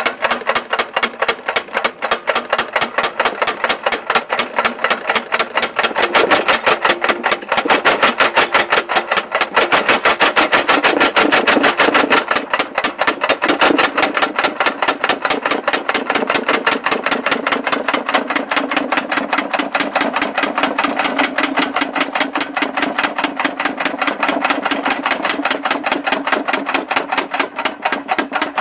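Murco mechanical power hammer, belt-driven by an electric motor, striking a red-hot steel bar between its dies in a rapid, steady run of blows, several a second.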